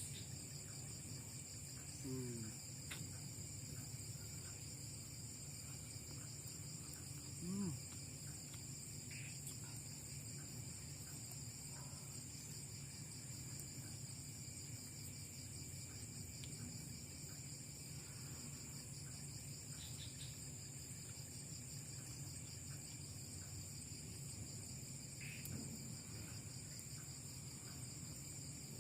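Steady chorus of crickets and other night insects, a continuous high pulsing trill. There are a couple of brief low sounds about two and seven seconds in.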